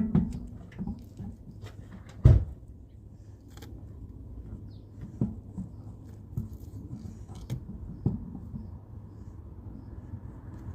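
A wheel and tyre being levered and shifted against a car's wheel hub to line up the bolt holes: a series of dull knocks, the loudest right at the start and about two seconds in, then lighter knocks spaced a couple of seconds apart.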